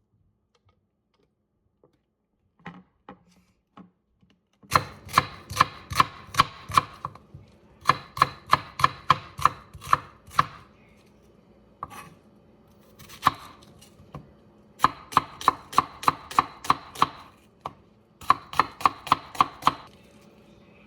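Knife chopping food on a cutting board: quick runs of sharp knocks at about five a second, with short pauses between runs. A few light taps come first, before the chopping starts about five seconds in.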